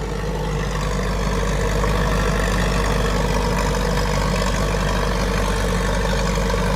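An old Allis-Chalmers crawler dozer's engine running steadily under load as it skids a red oak log on a chain, swelling slightly over the first couple of seconds.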